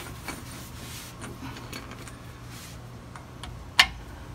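Socket wrench with a 24 mm socket handled against the rear differential's drain plug: a few light scattered metallic clicks, then one sharp metal clink near the end as the socket goes onto the plug to snug it up.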